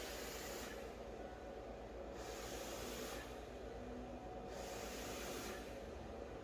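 Ceiling fan running at medium speed: a soft, steady rush of air over a low motor hum, the whoosh swelling and fading about every two seconds.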